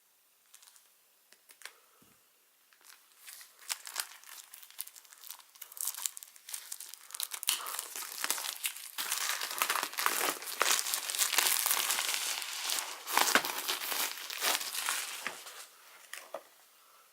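Packaging wrapped around a desk calendar crinkling and rustling as it is unwrapped by hand. The crinkling starts a few seconds in, grows loud through the middle and dies away near the end.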